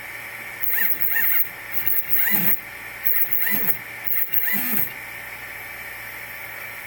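The Replikeo Prusa i3's two Z-axis stepper motors run in four short, stuttering spurts, each under a second, with a whine that rises and falls in pitch. They stop after about five seconds. Instead of turning smoothly, they turn, pause and lock up, which the owner likens to the motors getting both direction instructions at once.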